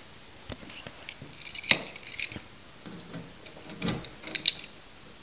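A bunch of keys jingling, then metallic clicks and scraping as a key goes into and turns in the car's door lock.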